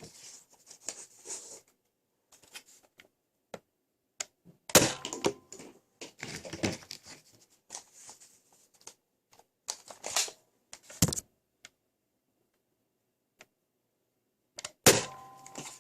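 Nerf Rival Fate blaster fitted with a Mega dart conversion kit, handled and fired in a chronograph test: scattered plastic clicks and rattles of loading and priming, with sharp firing shots about five, eleven and fifteen seconds in.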